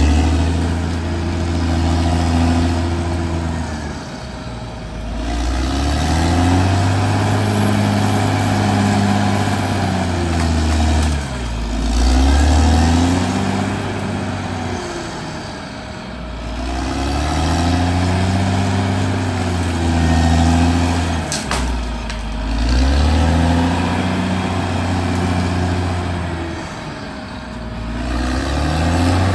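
Caterpillar D6R XL bulldozer's diesel engine running hard while it works, its note sagging and picking up again every five or six seconds as the load comes on and eases off.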